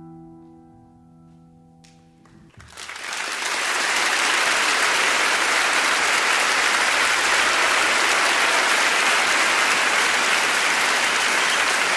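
The last held piano chord of a music track fades away, then applause fades in about three seconds in and continues steadily.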